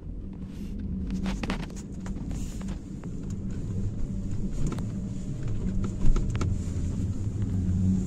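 Car running, heard inside the cabin: a steady low engine and road rumble with scattered knocks and rattles, and one sharper knock about six seconds in.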